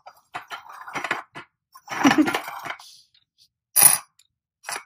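Glazed ceramic pieces knocking and scraping together: small ceramic rocks set into the bed of a ceramic toy truck, and the truck moved about on a glazed ceramic tile. A sharp, bright clink about four seconds in is the loudest, and a shorter one follows near the end.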